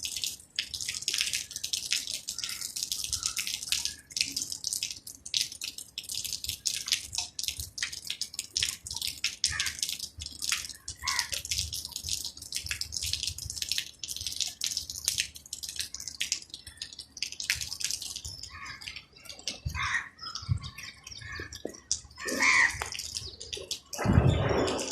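Rain falling and dripping: a dense, irregular run of small drops, with a louder, fuller noise near the end.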